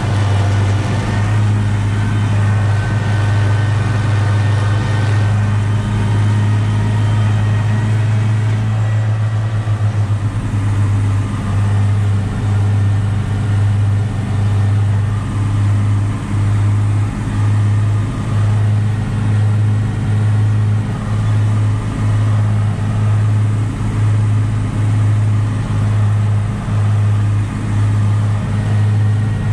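Massey Ferguson 6180's six-cylinder diesel engine with a straight-pipe exhaust, running steadily under load while mowing, heard from inside the cab. Its low drone dips slightly about once a second in the second half.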